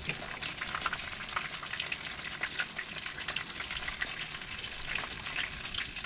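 Pieces of fish frying in oil in a pan: a steady sizzle thick with small crackles and pops.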